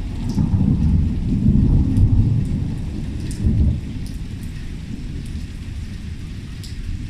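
Thunderstorm: heavy rain pouring down, with a low rolling rumble of thunder that is loudest in the first half and dies down about halfway through. Scattered drips tick throughout.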